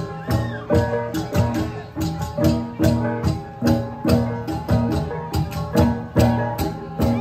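Central Highlands cồng chiêng gong ensemble: several hand-held gongs struck in a repeating interlocking rhythm, several strokes a second, each stroke ringing on at its own pitch, with a heavier low stroke about once a second.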